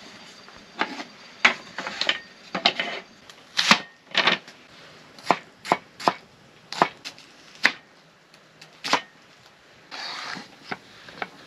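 Large kitchen knife chopping onion and then green pepper on a wooden cutting board: a run of sharp, irregular knocks, roughly one or two a second, with a short scraping sound near the end.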